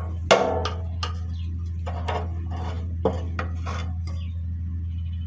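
Metal hand tools clinking and tapping while a generator spark plug is worked on: a sharp clink about a third of a second in, then scattered lighter taps. A steady low hum runs underneath.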